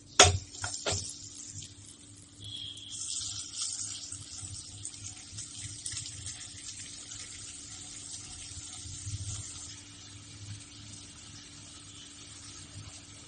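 A few sharp knocks at the start, then melted butter sizzling in a hot pan as cubes of paneer are dropped in to shallow-fry. The sizzle starts a couple of seconds in and fades gradually towards the end.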